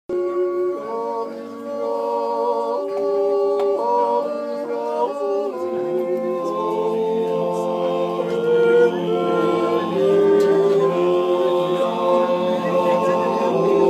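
Silvesterchläuse singing a Zäuerli, the wordless Appenzell natural yodel. Several men's voices hold long chords, and the melody moves in slow steps with a fresh phrase about halfway through.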